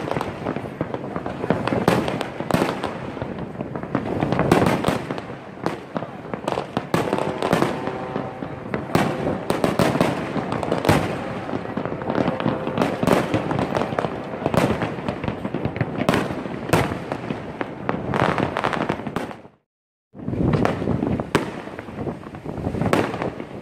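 Fireworks display: a dense, continuous barrage of aerial shells bursting, bang after bang with crackling between. The sound drops out completely for under a second near the end, then the bursts carry on.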